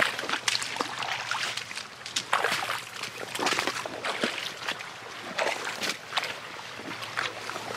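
Footsteps wading through shallow swamp water and mud, uneven sloshing and splashing steps.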